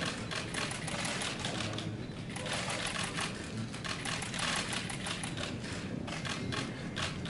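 Rapid, overlapping clicks of several DSLR camera shutters, fired in quick strings of shots.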